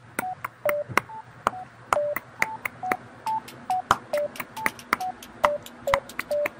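A quick run of sharp clicks, about four a second, with short electronic beeps at three or four different pitches sounding on some of them, like keypad tones.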